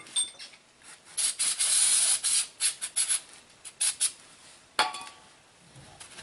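Aerosol brake cleaner spraying: one long hiss a second in, then several short spurts, blowing grinding dust off the part. A single sharp clink near the end.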